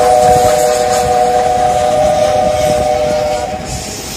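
Steam locomotive whistle sounding one long chord of three steady tones that cuts off about three and a half seconds in, over the hiss and rumble of the passing train.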